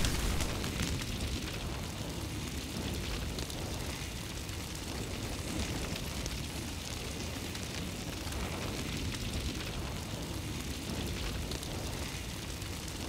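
Fire sound effect: a steady crackling rumble of burning flames.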